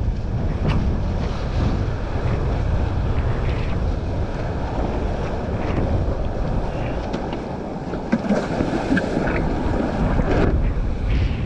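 Wind buffeting the microphone over the steady rush and splash of water under a wingfoil board riding at speed, with a few sharp knocks near the end.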